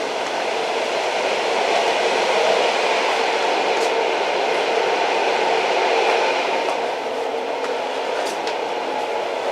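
Old train running steadily, a continuous rumble and rattle of the carriage on the rails with faint clicks now and then.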